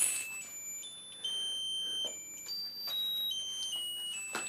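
Pink lotus-flower musical birthday candle's electronic chip playing a tinny tune, one thin, high beeping note after another.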